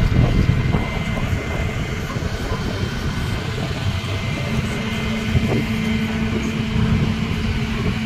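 A flatbed tow truck's engine and winch running as a car is drawn up the tilted bed: a steady low mechanical rumble, with a steady hum joining about halfway through.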